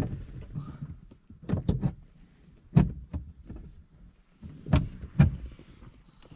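Plastic interior trim panels of a car knocking and clicking as they are handled and fitted back into place: a handful of sharp knocks spread over a few seconds.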